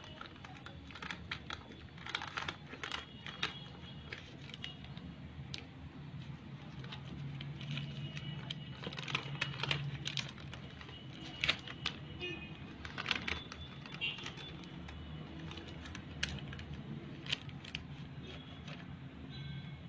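Stiff coloured paper and baking paper crackling and rustling as they are handled, folded and creased by hand, with many scattered sharp crinkles over a low steady hum.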